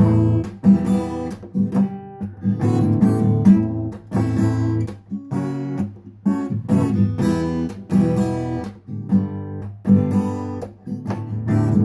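Acoustic guitar strummed in a steady chord rhythm, with no voice.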